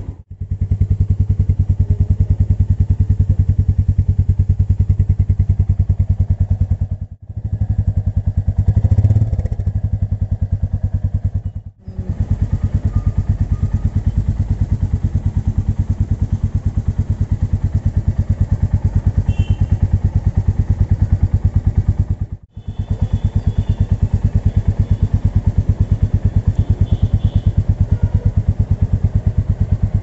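Royal Enfield Meteor 350's single-cylinder engine idling with an even, fast exhaust beat. It swells briefly about nine seconds in, and the sound cuts out for a moment four times where clips are joined.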